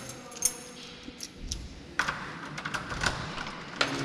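Keys and a door lock clicking: a few scattered clicks and light knocks, the sharpest about two seconds in.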